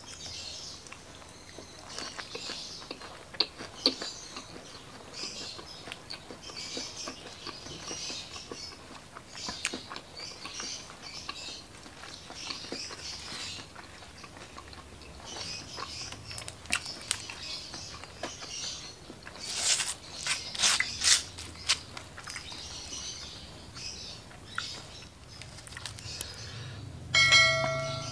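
Close-miked eating sounds: wet chewing and mouth smacks in a steady rhythm of about one a second, with louder crunching of the spicy fried shrimp about two-thirds of the way in. Near the end a short bright chime from a subscribe-button sound effect.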